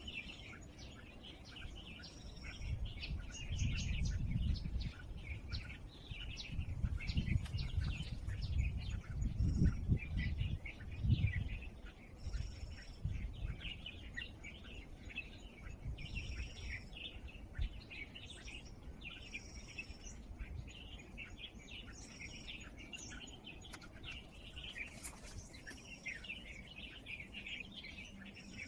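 A chorus of small birds chirping and calling, dense quick high chirps throughout, with a short clear higher note repeating every second or two. A low, uneven rumble comes and goes through the first half.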